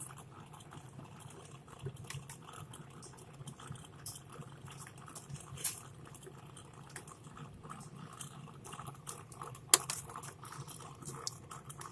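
Glue being cut and a small speaker worked loose from a walkie-talkie's plastic case: faint scraping and scattered small clicks, with a sharper click near the end.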